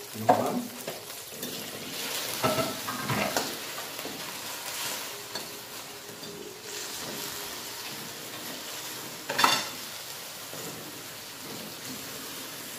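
A metal spatula stirring instant noodles in a wok of hot, steaming seasoned water over a steady sizzling hiss, with now and then a scrape or knock of the spatula against the wok, the sharpest about nine seconds in.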